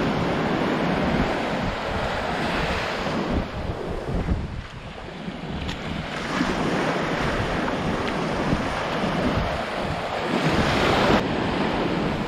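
Baltic Sea surf breaking and washing up the sand, with wind buffeting the microphone. The wash eases about four seconds in, then swells again.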